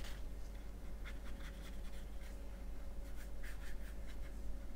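Small paintbrush stroking and dabbing watercolor paint onto watercolor paper, making soft scratchy strokes in a few short clusters, over a faint steady hum.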